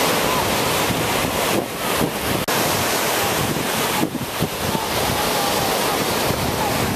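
Ocean surf breaking and washing up the beach, with wind buffeting the microphone; a steady rush, broken by a brief dropout about two and a half seconds in.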